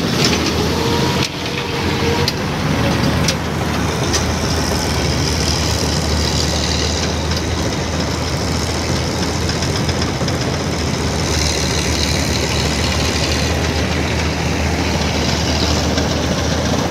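Farm tractor's diesel engine running steadily, with a few abrupt breaks in the first few seconds.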